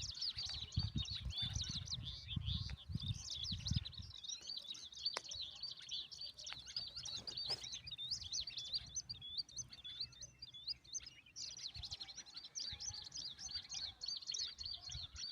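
Baby birds chirping: a dense, continuous stream of rapid high-pitched chirps, thinning out for a couple of seconds past the middle. A low rumble sits underneath during the first few seconds and again near the end.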